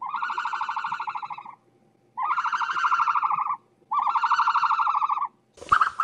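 An animal calling three times, each call a rapid fluttering trill lasting about a second and a half, with short gaps between. A brief, different sound follows near the end.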